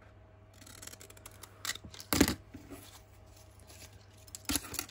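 Scissors cutting through brown kraft packaging paper: a soft rustling cut with a sharp snip a little over two seconds in, and another short sharp sound near the end.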